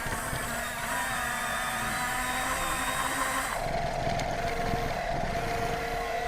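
Radio-controlled construction models' small electric motors and gearboxes whining as they work, with the pitch changing abruptly about three and a half seconds in.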